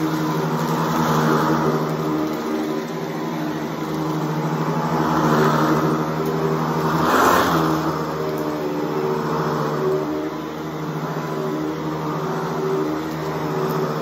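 Vintage Hoover Decade 800 upright vacuum running steadily on carpet, picking up shredded paper. Its motor hum stays even while the rush of air and debris swells and eases every couple of seconds as it is pushed and pulled, loudest about halfway through.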